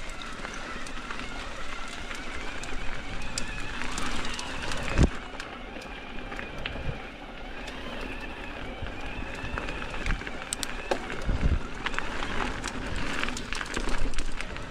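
Mountain bike ridden on a dirt trail: tyre noise over the ground with scattered small clicks and rattles, and two low thumps, about five and eleven seconds in.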